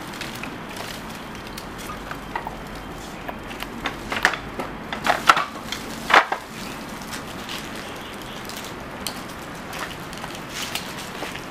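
Dry branches and scrap wood being handled: scattered sharp cracks and snaps, with a cluster of louder ones about four to six and a half seconds in, over a steady hiss.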